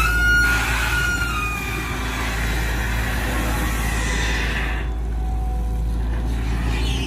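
Diesel engine of a Volvo EC210DL long-reach excavator running under load as it digs and swings, a steady low rumble. High squeals glide down in pitch in the first two seconds, and a hiss drops away about five seconds in.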